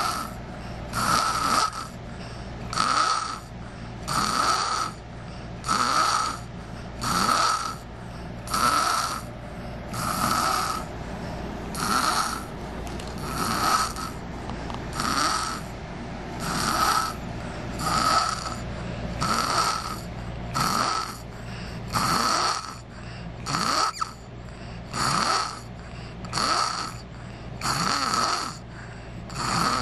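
A 5-year-old boy snoring in his sleep, steady and rhythmic, one snore about every second and a half.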